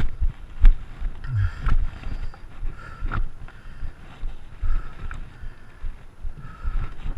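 Mountain bike ridden over rough ground: irregular jolts and rattles, with wind buffeting the microphone. A short squeak comes back about every two seconds.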